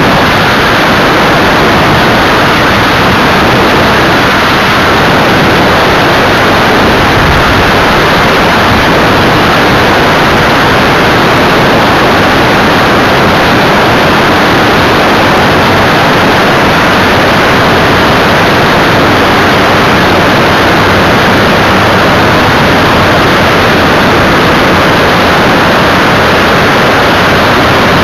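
Steady, loud rush of wind over a camera mounted on the tailplane of an Evektor Eurostar light aircraft in flight, with the engine and propeller drone mixed into the wind noise.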